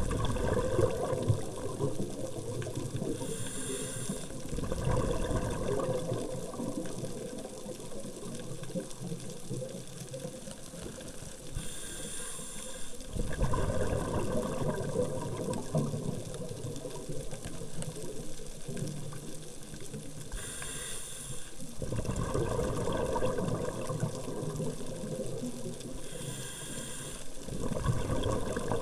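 Scuba diver's regulator breathing: a short hiss on each inhale, then a gurgling rush of exhaled bubbles lasting a few seconds, about four breaths in slow, even rhythm.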